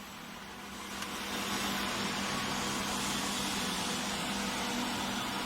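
Automatic pipe welding machine running: a steady hum with an even hiss that builds up about a second in and then holds.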